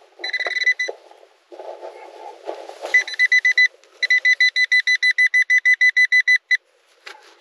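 Metal detector beeping in a high tone: short runs early on, then a fast string of pulses, about seven a second, lasting over two seconds near the middle. Between the beep runs there is a rough, noisy sound in the soil.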